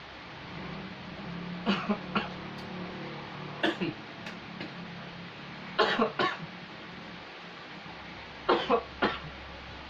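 A man coughing in four short fits of two or three quick coughs each, spaced about two seconds apart.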